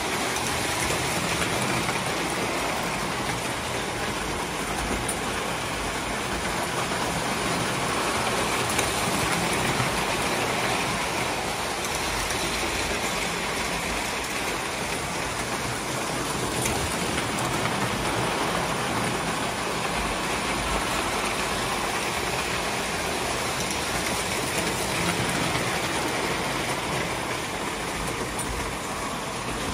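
Toy electric trains running on three-rail O gauge metal track: a steady rolling rumble and clatter of wheels on the rails.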